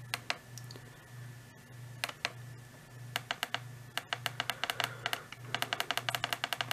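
Tune buttons on a Midland ER50 weather radio clicking as they are pressed to set the clock: a few single clicks, then from about three seconds in a fast run of clicks, several a second. A faint pulsing hum lies under it.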